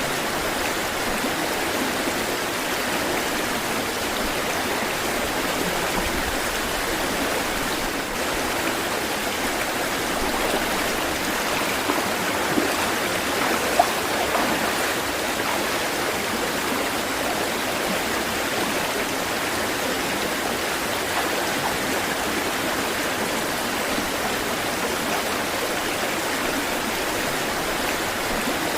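Flowing water rushing steadily, with a few brief louder splashes near the middle.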